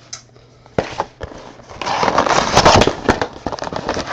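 Plastic wrapping crinkling and tearing as a box of trading card packs is opened. There are a few sharp clicks about a second in, then dense crackling for the rest.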